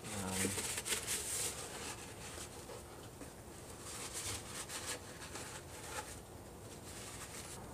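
Paper towel rubbing and rustling inside the BMW 328i's plastic air box housing as debris is wiped out, with a few light taps; faint and intermittent, busiest in the first second or so.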